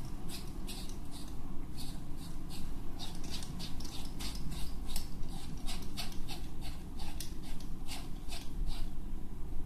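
Hand razor scraping through beard stubble on lathered skin of the chin and neck, in quick repeated short strokes, about three a second.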